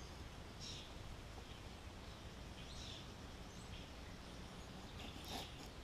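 A few faint, brief scraping strokes, a Scandi-grind knife shaving fine curls off a wooden stick.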